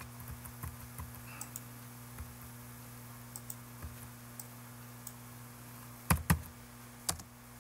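Light, scattered computer mouse clicks, with two louder clicks about six seconds in and another about a second later, over a low steady hum.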